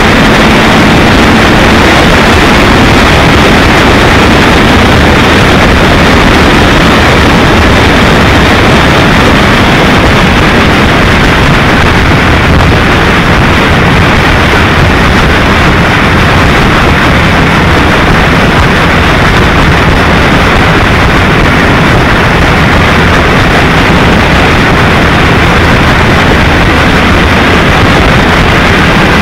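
Skeeter bass boat running across the lake, with loud, steady wind noise on the microphone and the outboard engine's drone underneath.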